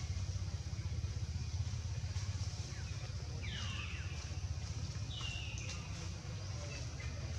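Two short, high animal calls, each falling in pitch, about three and a half and five seconds in, over a steady low rumble.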